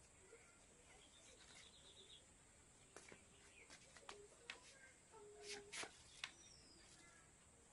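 Faint bird chirps over a quiet yard, with a cluster of light clicks and taps about halfway through as the plastic webbing strip is handled and woven onto the wooden charpai frame.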